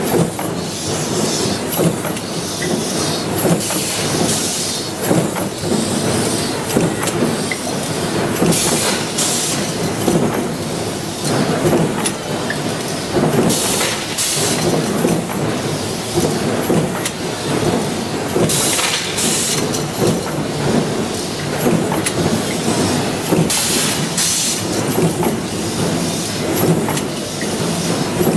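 Hinge-factory machinery running: the continuous rapid metallic clatter of a stamping press and an automatic hinge assembly machine, with short bursts of compressed-air hiss from the pneumatic cylinders every few seconds.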